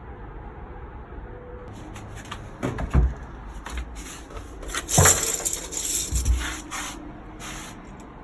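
Handling noise: a couple of sharp knocks and clatters, with a short hissing rush of noise about five seconds in, over a low steady hum.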